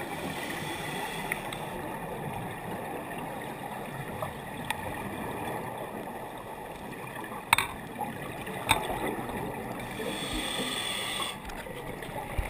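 Underwater sound on a scuba dive: a steady muffled rush of water with divers' exhaled regulator bubbles. Two sharp clicks come about a second apart past the middle, and a brighter hiss of bubbles follows near the end.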